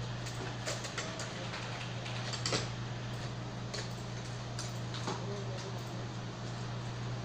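Scattered light clicks and taps of small printer parts being handled during repair, a few seconds apart, the loudest about two and a half seconds in, over a steady low hum.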